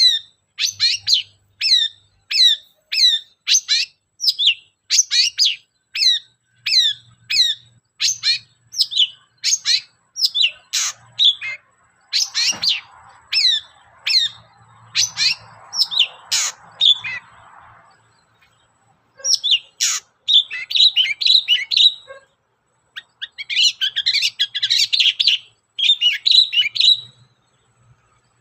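Long-tailed shrike singing: a run of sharp, quickly falling notes at about two a second, then after a short pause a fast jumble of varied notes near the end.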